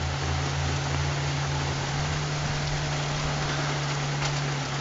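Heavy rain falling steadily, with a low steady hum beneath it that cuts off near the end.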